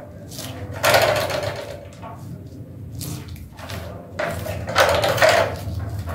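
Gloved hands scraping and gathering shredded red cabbage on a plastic tray, in a few uneven rustling scrapes, over a low steady hum.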